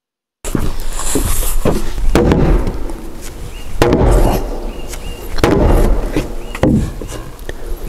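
Heavy wooden mallet knocking a timber beam down into its joint on top of a post, a series of hard wooden knocks, the loudest about one every second and a half, each ringing briefly through the frame.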